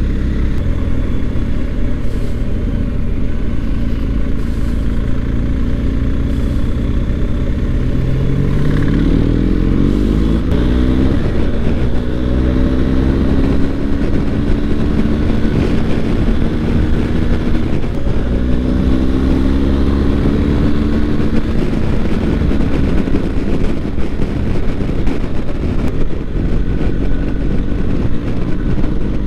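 BMW R1250 GS boxer-twin engine running under way, with a heavy, steady low rumble. The engine note rises twice, about a third and about two-thirds of the way through, as the bike accelerates.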